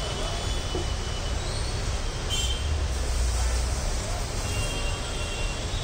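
Steady low rumble of passing road traffic, with a brief clink about two and a half seconds in.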